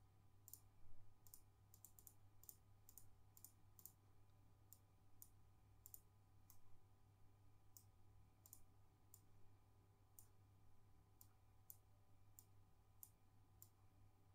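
Faint computer mouse clicks, a couple of dozen at irregular intervals, some in quick pairs, over a low steady hum.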